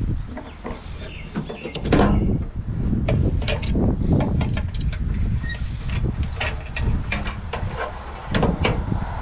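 Garden cutters snipping through wiring cables in a gas hot water unit: a run of sharp, irregular clicks and snips with handling noise and a low rumble underneath.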